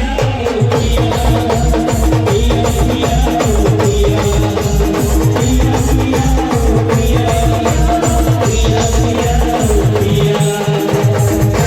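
Live band playing Timli dance music: a fast, steady drum beat under a repeating melody line. The low drum beat drops away briefly near the end, then comes back.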